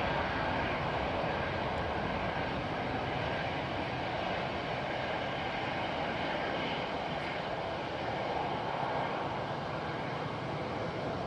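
Airbus A350-900's Rolls-Royce Trent XWB turbofan engines at takeoff thrust during the takeoff roll, a steady rushing roar as the airliner accelerates down the runway.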